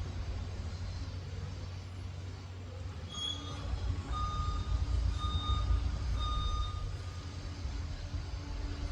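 Liebherr PR 746 crawler dozer's diesel engine running under a low, steady rumble. About three seconds in, its reversing alarm sounds four beeps roughly a second apart as the dozer backs up.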